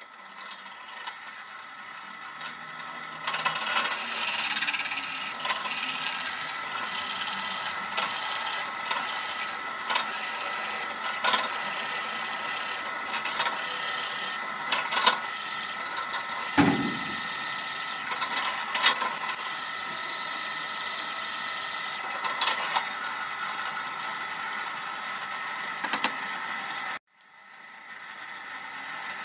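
Drill press running with a steady whine while the bit cuts into a metal plate, with crackling and ticking from the cutting and the chips. One dull thump a little past halfway, and the sound cuts out briefly near the end before starting again.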